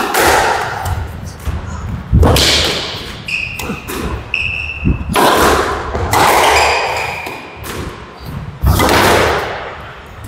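Squash rally: the ball is struck by racquets and hits the court walls in a series of hard, echoing thuds every second or two, with short squeaks of shoes on the court floor.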